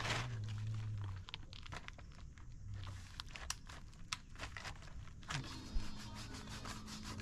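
A paint-spattered protective sheet being crinkled and handled, with many small clicks and crackles, as painting gear is packed up. A low hum lasts for about the first second.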